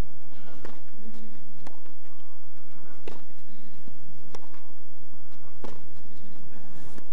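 Tennis racquets striking the ball back and forth in a baseline rally: a crisp hit about every one and a third seconds, at an even rhythm.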